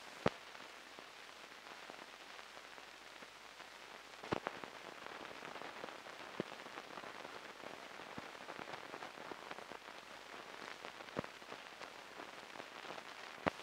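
Faint steady hiss and crackle of an old film soundtrack, with a few sharp pops scattered through it, the loudest just after the start and about four seconds in.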